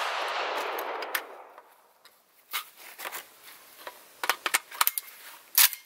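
The echo of a rapid string of shots from a Saiga .410 semi-automatic shotgun dies away over about a second and a half. Scattered metallic clicks and rattles follow as the gun is handled and its magazine is taken out.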